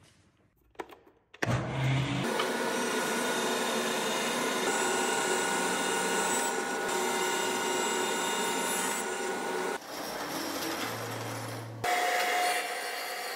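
Thickness planer starting up suddenly about a second and a half in, then running steadily with a whine while planing an old barnwood board, and quieter after about ten seconds. Near the end the sound changes abruptly to a table saw running, with a single steady tone.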